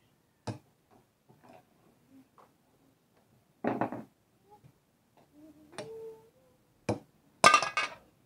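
Kitchenware being handled: a few single sharp knocks and two short clattering runs, the loudest near the end.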